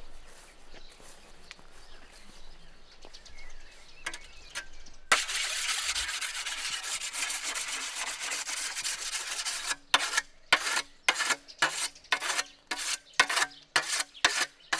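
Scythe blade being honed with a whetstone. About five seconds in, a steady scraping starts suddenly; about five seconds later it turns into quick, short strokes along the blade, about three a second.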